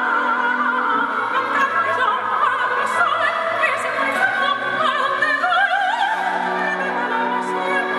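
A woman singing opera into a microphone, her voice wavering in a wide vibrato, over an instrumental accompaniment.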